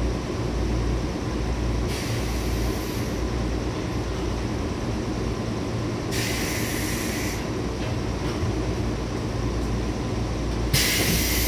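Onboard running noise of a JR West 105 series electric train, a steady low rumble heard inside the car. Three short bursts of hiss come about two, six and eleven seconds in.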